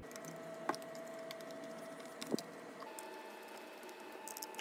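Faint small clicks and ticks of a Phillips screwdriver and the metal SSD drive caddy being handled while screws are put back, with two clearer clicks and a cluster of small ticks near the end. A faint steady tone runs underneath.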